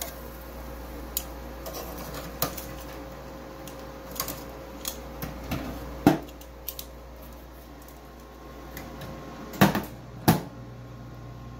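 Metal tongs clicking and clinking against the wire rack of an air fryer oven in a run of short, sharp knocks. Two louder knocks come near the end, as the oven's glass doors are shut.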